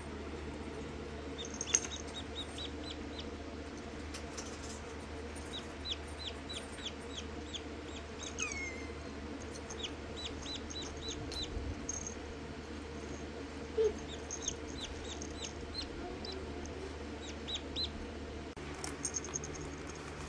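Newly hatched Rhode Island Red chick peeping: runs of short, high, downward-sliding peeps, several a second, with one longer falling peep near the middle. A faint steady low hum lies underneath.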